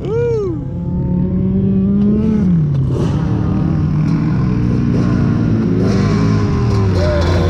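Dirt bike engine being ridden on the throttle. It revs up and drops in a quick blip at the start, pulls steadily, eases off after about two seconds, and blips again near the end.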